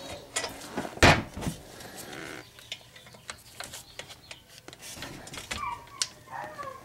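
Metal clicks and clanks of a wrench being fitted and worked on a brake caliper bolt, with a heavy knock about a second in.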